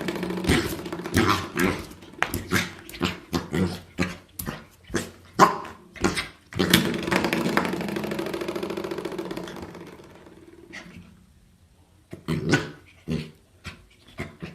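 A dog vocalizing in many short barks, with one longer drawn-out call about seven seconds in that fades away, a brief lull, then more short barks near the end.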